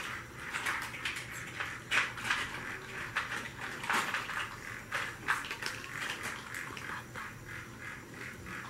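Hard plastic toy pieces clicking and clattering irregularly as they are handled, with a faint steady hum underneath.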